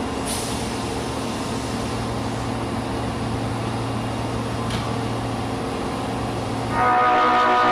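Osaka subway 22 series train standing with a steady low hum, then near the end its horn sounds, a loud blast of several steady tones held on. This car's horn makes an abnormal, off sound.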